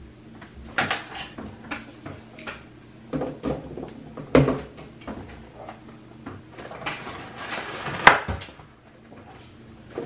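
Knocks and clicks of small objects being handled and set down, like a cupboard or drawer being worked. The sharpest knock is about halfway through. Near the end comes about a second of rustling that ends in a loud click.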